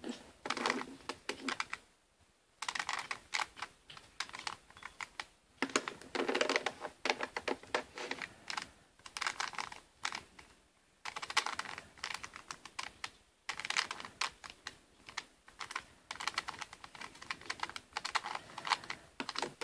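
A 3x3 Rubik's Cube being turned quickly by hand, its plastic layers clicking and clacking in rapid runs broken by a few short pauses.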